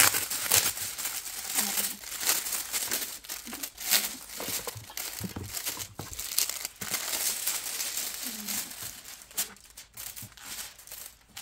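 Packaging crinkling and tearing as a boxed photobook set is unwrapped by hand, in quick irregular rustles that thin out near the end.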